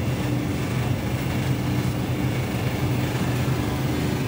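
Steady low machine hum with a constant drone and a faint even rush.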